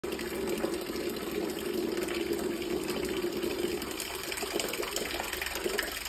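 A thin stream of water running and splashing from a tube fixed to a vibrating subwoofer cone, in a steady noisy trickle. A steady drone under it fades about halfway through.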